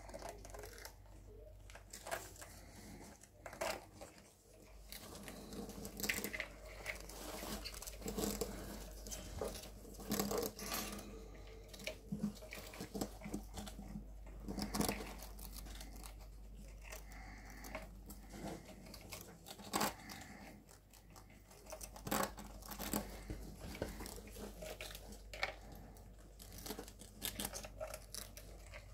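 Pet rats gnawing and crunching on dry, crunchy treats such as toasted bread, a run of irregular small crunches and nibbles, with rustling of the wood-shaving bedding.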